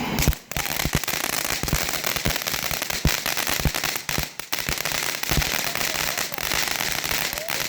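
A lit consumer firework crackling and popping rapidly and continuously, with brief dips about half a second and four seconds in.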